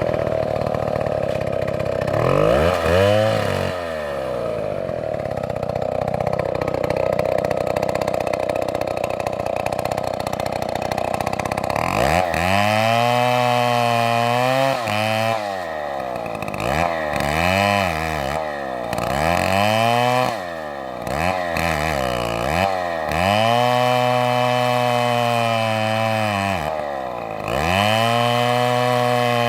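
Chainsaw running, at first fairly steady with one quick rev about three seconds in. In the second half it is revved up and down over and over, the pitch climbing and dropping every second or two.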